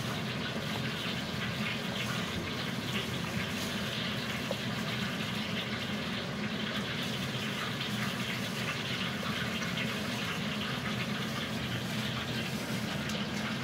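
Steady rushing background noise throughout, with faint rustling and crinkling as a plastic-gloved hand tosses duck pieces through grated galangal in a stainless steel bowl.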